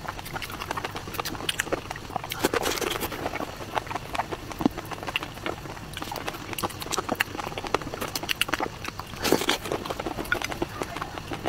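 Close-miked eating-show sounds: many irregular wet clicks and crackles as plastic-gloved hands pull apart raw shrimp in chili sauce and roe, along with chewing. The clicks come thickest about nine seconds in.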